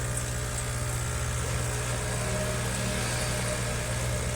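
Espresso machine's water pump running with a steady hum as it pushes water out. The machine answers the OK button with nothing but this pumping of water.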